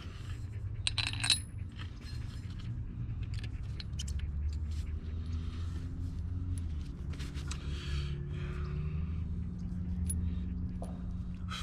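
Small metal shock-mounting hardware (washers, bushings, nuts) clinking and scraping as it is handled, with a sharp ringing click about a second in. A steady low hum runs underneath.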